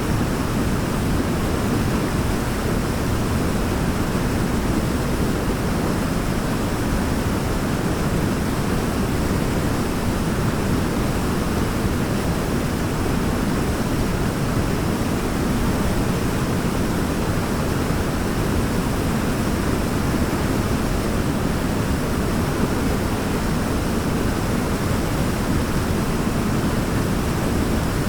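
Waterfall: falling water making a steady, even rush, deepest in the low range, with no change or break.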